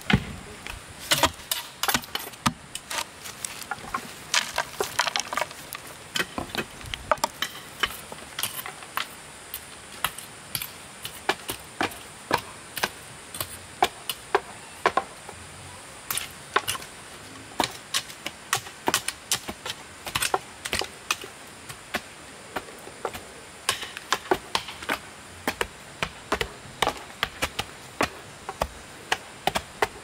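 Bamboo being chopped with a blade: quick, irregular sharp strikes and cracks, several a second in clusters with short pauses between them.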